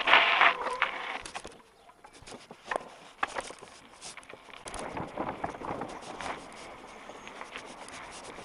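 Mountain bike clattering over tarmac, kerbs and gravel, with irregular knocks and rattles from the frame and fittings at a steady riding pace. A loud short burst of noise comes right at the start.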